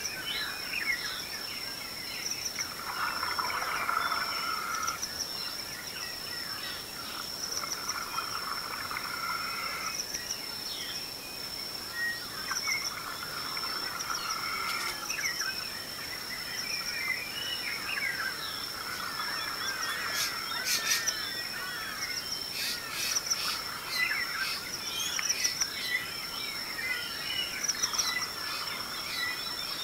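Dawn chorus in the Selous bush in Tanzania: many birds calling and singing over one another, above a steady high-pitched insect trill, with short clusters of sharp clicks past the middle.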